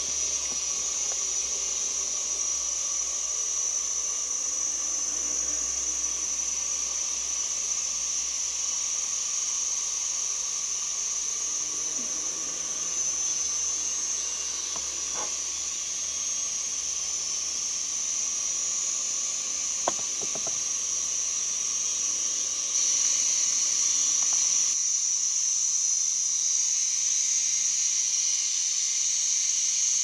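Steady high-pitched insect chorus over a constant hiss, with two faint clicks in the middle. About three-quarters through, the insect sound grows louder and the low rumble drops away.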